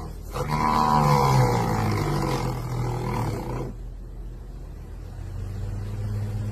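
An animal's long drawn-out call, slowly falling in pitch and lasting about three seconds, then a steady low hum.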